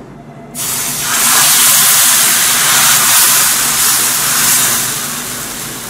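Thin, watery ragi dosa batter hitting a hot tawa and sizzling with a loud hiss, which starts suddenly about half a second in and eases off toward the end as the lacy dosa sets.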